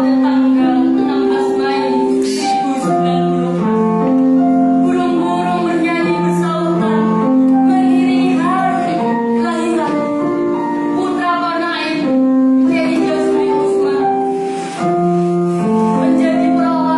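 Female voices singing a slow song with long held notes over keyboard accompaniment.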